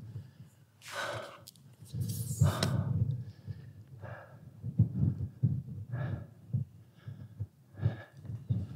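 A person breathing hard, a rough breath about every one to two seconds, over a run of low thumps.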